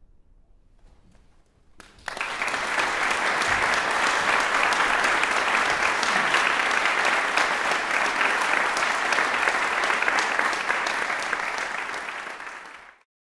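Audience applauding, starting suddenly about two seconds in after a near-silent pause, holding steady, and then cutting off abruptly near the end.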